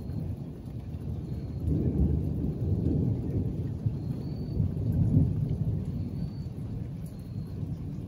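Rolling thunder: a low rumble that swells about a second and a half in, peaks twice, then slowly fades away.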